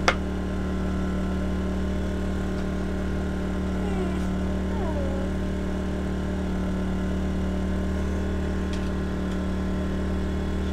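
Generator engine running at a steady, constant hum, with a short sharp click right at the start.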